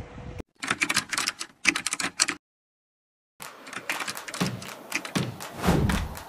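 Typing sound effect: rapid keystroke clicks in two quick runs, a second of dead silence, then more clicking with a few heavier thuds.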